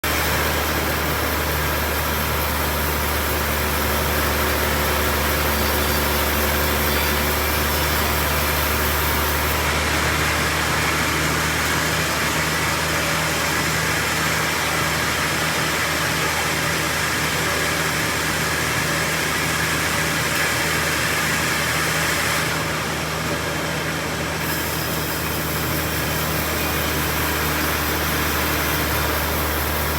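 Sawmill engine running steadily, with a brighter, hissier tone from about ten seconds in until about twenty-two seconds.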